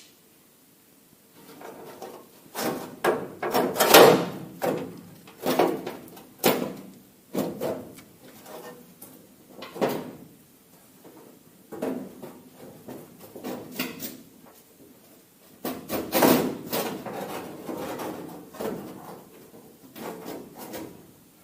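Irregular scraping, knocking and rattling of parts being worked loose by hand, in clusters, loudest about four seconds in and again about sixteen seconds in.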